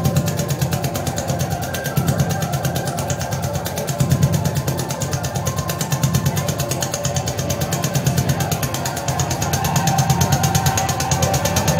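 Live band playing a loud, heavy electronic drone that throbs with a rapid, even pulse.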